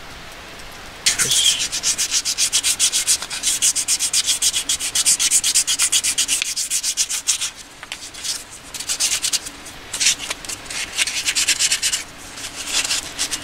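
A carved wooden spoon sanded by hand with sandpaper: quick back-and-forth strokes, several a second. The strokes start about a second in and come in runs with short pauses between them.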